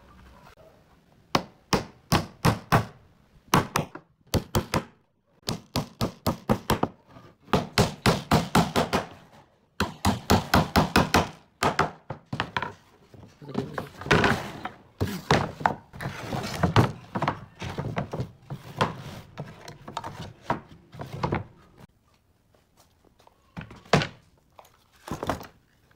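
Claw hammer driving nails into wooden boards: quick runs of sharp blows, several to each nail, through the first half. Then wooden boards knocking and clattering as they are handled and stacked, with a few single knocks near the end.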